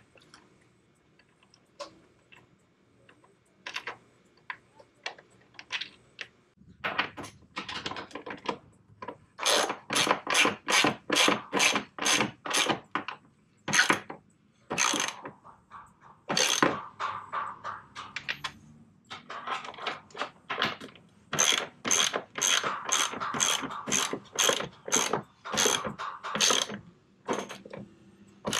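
Ratchet wrench worked in quick strokes, about three a second, in runs with short pauses, after a few seconds of faint scattered clicks.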